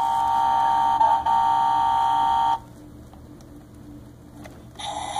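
Electronic horn of a Tonka Mighty Motorized toy fire truck sounding through its small speaker as a steady, loud tone with a brief break about a second in, cutting off suddenly after about two and a half seconds. Near the end a buzzier sound effect starts, the toy's engine-start sound.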